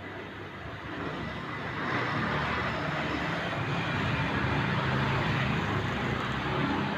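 Road traffic passing close by, the engine and tyre noise swelling about two seconds in and staying loud.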